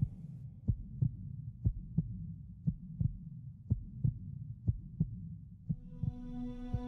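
Heartbeat sound effect: double 'lub-dub' beats about once a second over a low drone. A held musical note comes in near the end.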